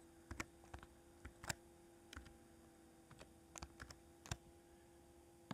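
Faint computer-keyboard keystrokes, a dozen or so irregular taps while a short security code is typed, over a faint steady hum.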